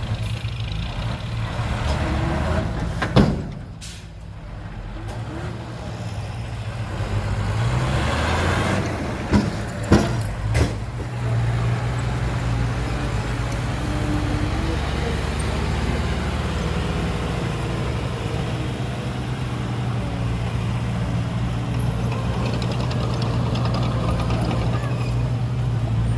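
Diesel engines of a small bulldozer and dump trucks running steadily. There is a sharp bang about three seconds in, and a few clanks around ten seconds.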